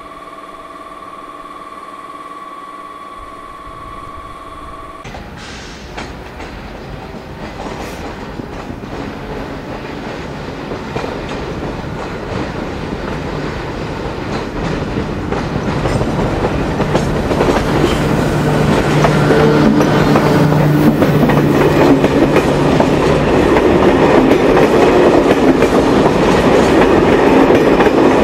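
An SNCF BB26000 electric locomotive, standing, gives off a steady high whine; then a BB26000 hauling passenger coaches approaches and passes, growing steadily louder, its wheels clattering over the rail joints.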